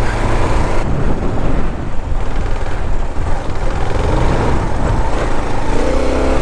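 Kawasaki KLR650 dual-sport motorcycle's single-cylinder engine running under way, with its note rising near the end. Heavy wind rumbles on the microphone throughout.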